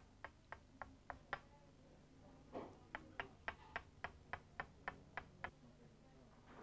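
Faint, evenly spaced ticking, about three or four light clicks a second: a short run, a pause, then a longer run that stops before the end.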